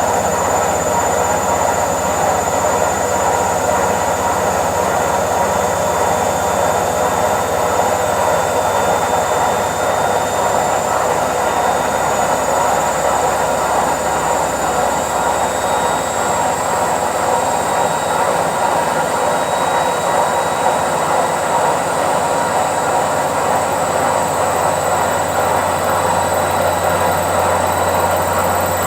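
Indesit IWC71252 washing machine on its spin cycle: the drum spinning at speed makes a steady, even rush with a faint high whine over it and a low hum underneath.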